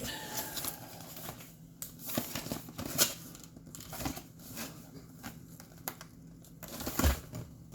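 Crinkling and rustling of packaging being turned over and handled, likely the case of baby food pouches, with scattered clicks and two sharper knocks, about three seconds in and near the end.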